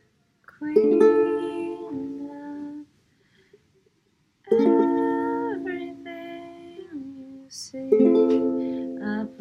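Ukulele strummed one chord at a time, each chord left to ring and fade: three chords, about a second, four and a half seconds and eight seconds in, with a near-silent pause of over a second before the second.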